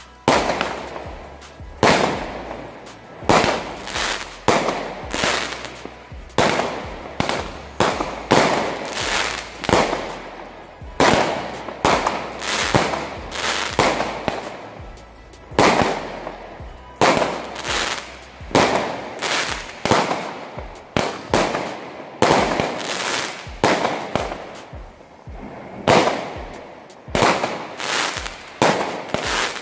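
185-shot, 17 mm compound firework (Verbund) firing a rapid, irregular series of shots, about one loud shot a second with smaller ones in between, each followed by its burst of stars fading out.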